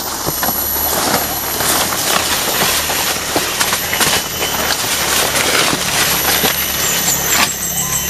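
Footsteps and brushing through dense forest undergrowth: leaves and stems swishing and crackling against the person carrying the camera, over a steady low hum. A few short high chirps come near the end.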